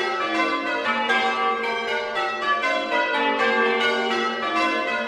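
Church bells ringing, recorded close up: several bells struck one after another in quick succession, about three strikes a second, their tones overlapping and ringing on.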